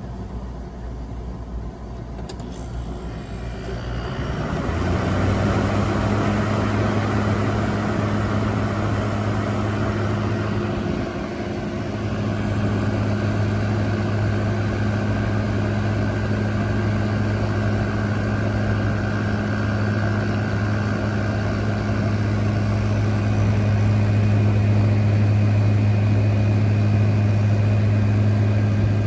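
2023 General Electric 5,000 BTU window air conditioner starting up on high cool. A click comes a couple of seconds in, then the fan spins up with rising rushing air, and about five seconds in the compressor comes on with a steady low hum. The unit then runs steadily.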